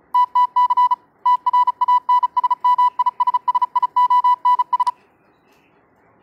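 Morse code beeps: a single steady tone keyed on and off in short and long beeps for about five seconds, with a brief pause about a second in, ending with a sharp click.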